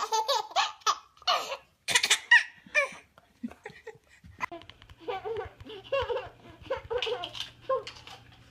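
A young child laughing in quick repeated bursts of giggles and belly laughs.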